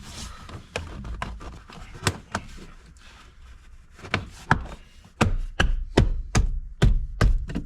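Plastic dash trim being worked into place by hand: a few light clicks and rubs, then from about four seconds in a quick run of sharp knocks, roughly three or four a second, on the trim panel.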